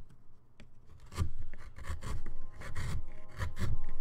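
Irregular rubbing and scraping with soft knocks, louder from about a second in: things being shifted and handled on a desk littered with woodcut carving chips.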